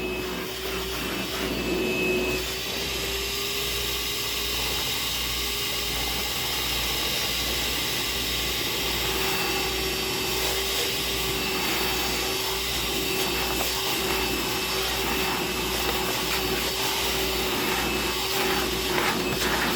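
DeWalt DCV581H cordless wet/dry vacuum running steadily on its battery, a constant motor whine under an even rush of air as it sucks up water. There are a few sharp clicks near the end.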